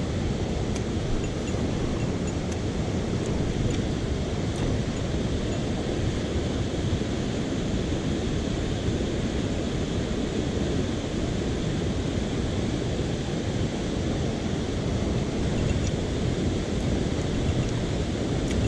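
Mountain stream water rushing, a steady noise of flowing water with a few faint high ticks.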